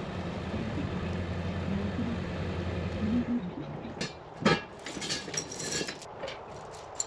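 Engine idling steadily, stopping abruptly about three seconds in. Scattered clinks and knocks follow, the loudest a single sharp knock about four and a half seconds in.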